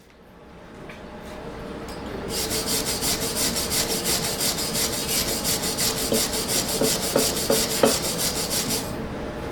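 MAG welding arc crackling in a fast, even pulse of about six bursts a second over a steady hum, laying a bead, for about six and a half seconds.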